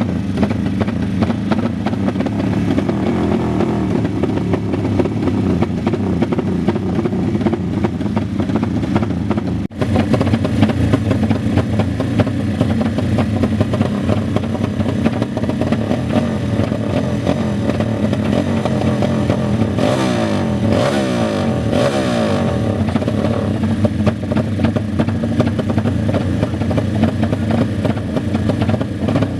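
Motorcycle engines running and revving continuously, with a few revs rising and falling about two-thirds of the way through. The sound breaks off for an instant about a third of the way in.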